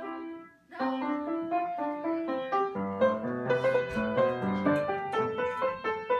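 Background piano music: a melody of quick single notes, with lower notes joining about three seconds in.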